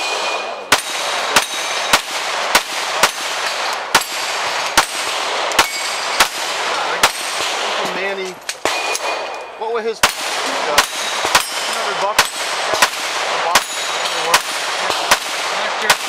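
Rapid string of 9mm pistol shots from an SJC Glock 17 open-class race gun, about two a second, with steel targets ringing faintly after hits. There is a break of about two seconds midway, then the shooting resumes at the same pace.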